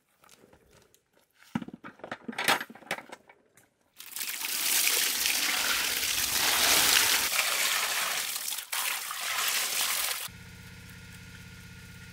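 Water poured and splashing over whole fish in an aluminium basin as they are rinsed, loud and steady for about six seconds from about four seconds in. Before it come a few scattered knocks, and after it cuts off a steady low hum sets in.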